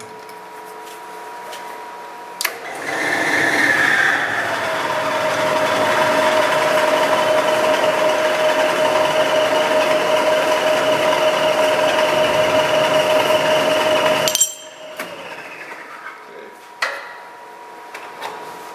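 Drill press motor switched on with a click, spinning up over a couple of seconds and running steadily for about twelve seconds, then switched off with a click and coasting down.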